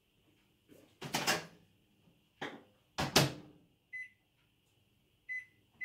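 Microwave oven being loaded and shut: several sharp clunks of the door and the dish, the loudest about three seconds in. Two short high keypad beeps follow about a second apart near the end.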